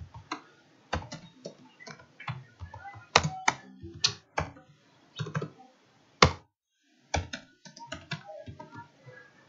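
Computer keyboard keys clicking in irregular bursts of typing, with one louder keystroke a little past the middle followed by a short pause.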